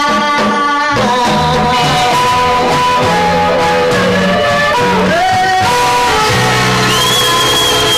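Live blues band playing: electric guitar, bass and drums, with harmonica and singing over the top.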